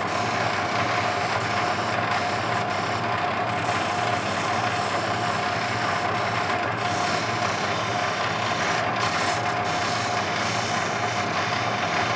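Lapidary cabbing machine running steadily with a constant whine, an opal held against its wet 600-grit soft diamond wheel to smooth and round off the stone's edges.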